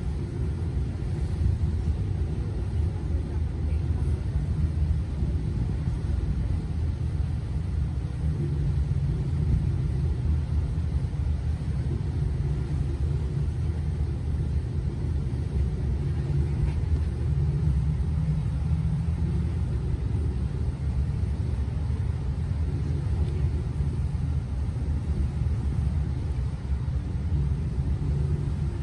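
Steady low rumble of a motor yacht under way, its engines and hull running through the water, heard from inside the cabin.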